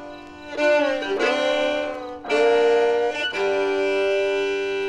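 Instrumental intro music: a bowed fiddle plays a slow melody of long notes that slide between pitches, with the last note held from about three and a half seconds in.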